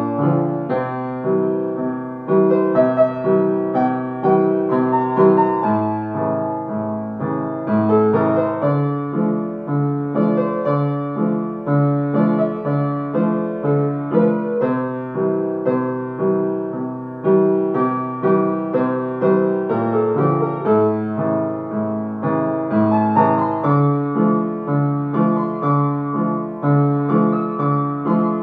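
Solo upright piano playing a slow song melody over steady, evenly repeating chords in the bass.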